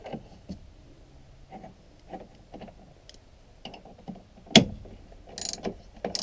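Metal hand wrenches being handled and fitted at a car battery terminal: scattered light clicks and taps, one sharp metallic clink about four and a half seconds in, and brief metal-on-metal rattles near the end.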